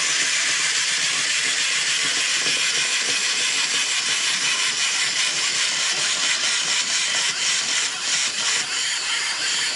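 A steady hissing noise, with faint crackles and clicks creeping in about eight seconds in.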